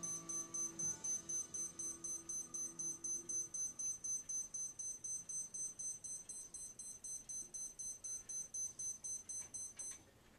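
Rapid high-pitched electronic beeping, about four beeps a second, that stops suddenly about ten seconds in. Faint music fades out underneath during the first few seconds.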